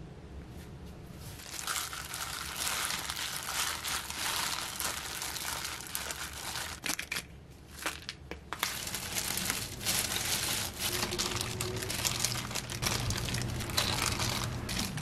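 Seasoned rice being mixed in a glass bowl, then a disposable plastic glove crinkling as the rice is squeezed into balls by hand. A dense, crackly rustle with a short lull about halfway through.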